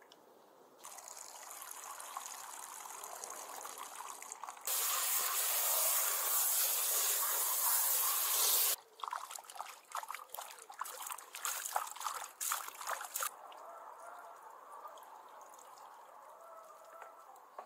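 Water from a garden hose pouring onto raw beef tripe in a wooden bowl, a steady rush that gets louder for about four seconds in the middle and then stops abruptly. Irregular wet splashes follow as the tripe is rubbed and rinsed by hand.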